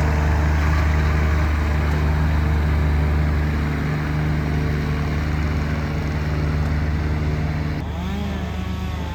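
Engine of tree-removal equipment running steadily at constant speed with a low drone, its sound shifting slightly about eight seconds in.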